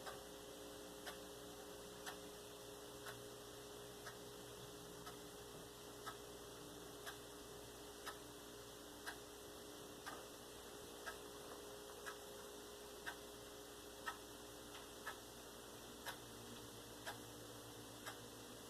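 Clock ticking steadily about once a second over a faint, steady hum.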